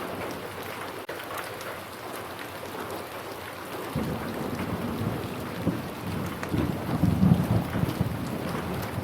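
Steady rain falling, with a low rumble of thunder that starts about four seconds in, swells to a peak and eases off near the end.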